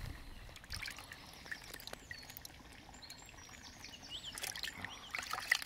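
Water sloshing and dripping in a plastic tub as a hand scoops through it for a small carp, with water running off the hand in scattered drips and splashes that grow busier near the end.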